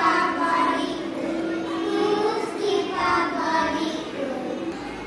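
A small group of young children singing together in unison, in short held phrases.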